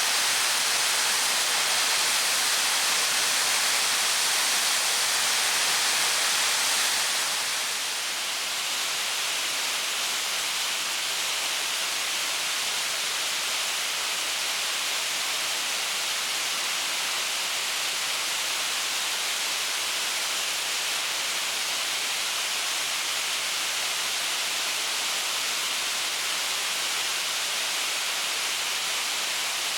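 Steady rushing of spring water cascading over rocks as a waterfall, with no let-up. It becomes slightly quieter and duller about seven seconds in.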